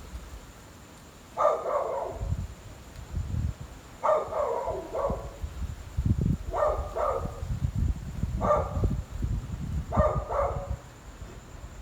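A dog barking repeatedly, single barks and quick pairs every second or two, over a low rumble.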